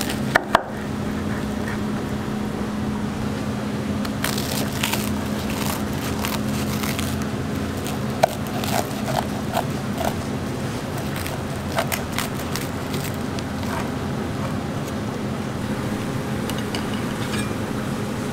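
Large kitchen knife slicing through toasted-bread egg sandwiches on a wooden cutting board: scattered crunches and crackles of the toasted crust and light taps of the blade, over a steady low hum.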